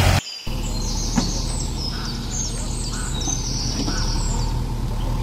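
Small birds chirping in many quick, high-pitched calls over the low, steady hum of an engine.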